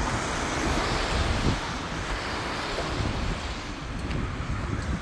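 Wind buffeting the phone's microphone with uneven low rumbles, over a steady hiss of falling rain and sleet.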